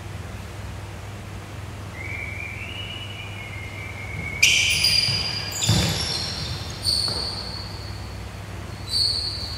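Rubber-soled court shoes squeaking on a wooden badminton court floor during a rally. A long, thin, slightly rising squeak starts about two seconds in, then sharper high squeaks come every second or two, with a thump from a footfall or hit near the middle.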